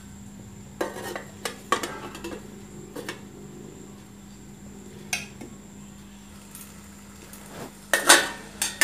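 Steel lid set down on a steel kadhai of dal with a few metal clinks and clatters, then quiet, then a louder burst of clattering near the end as the lid is lifted off with a ladle resting on it.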